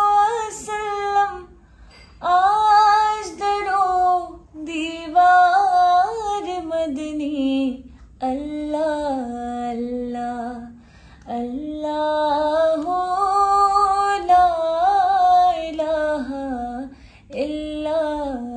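A woman singing a naat solo, with no instruments heard, in long drawn-out melodic phrases separated by short breaks for breath.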